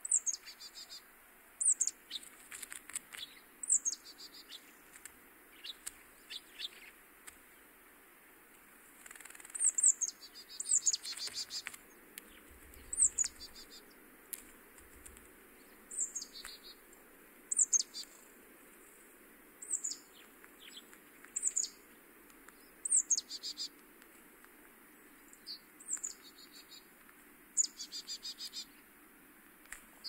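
A small songbird's sharp, high call, each a quick downward sweep, repeated about a dozen times at irregular gaps of one to a few seconds; several calls end in a short buzzy rattle.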